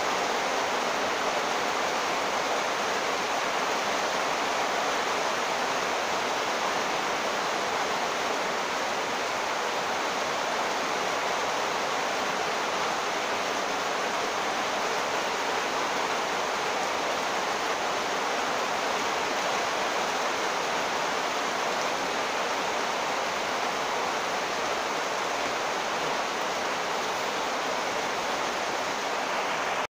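Heavy monsoon rain pouring down, a dense steady hiss that neither rises nor falls.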